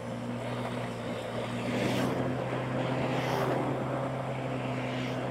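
Motorbike engine running at a steady cruising speed, an even low drone, with rushing wind noise on the camera microphone swelling every second or so.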